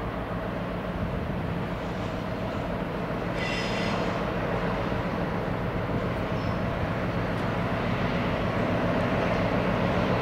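Diesel train running through the station, its engine hum growing steadily louder as it approaches. A brief high-pitched squeal sounds about three and a half seconds in.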